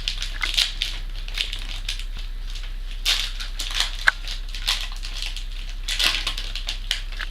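Crinkling and rustling of a trading-card hanger pack's wrapper as it is opened by hand, in irregular bursts, with a short sharp click about four seconds in.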